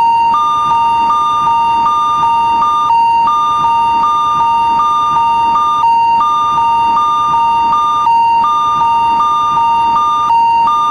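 Japanese railroad crossing (fumikiri) warning alarm ringing: an electronic signal of two alternating high tones that repeats steadily, with a short break about every two to three seconds.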